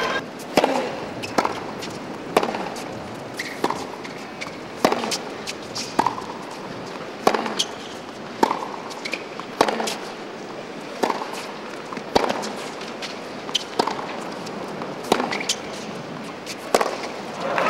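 Tennis ball played back and forth in a long baseline rally on a hard court. Sharp racket strikes and ball bounces come about one every second, over a steady background hiss.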